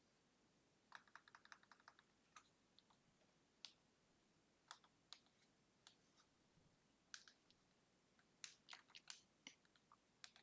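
Faint typing on a computer keyboard: a quick run of keystrokes about a second in, then scattered single clicks and short runs.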